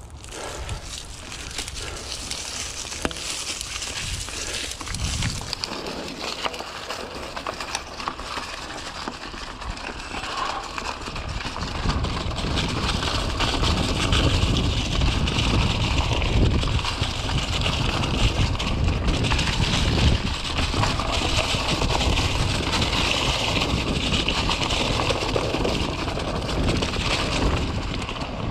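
Mountain bike riding along a dirt singletrack: continuous crunching and rattling noise from the tyres and bike over the trail surface. It gets louder about twelve seconds in, when a deep rumble joins.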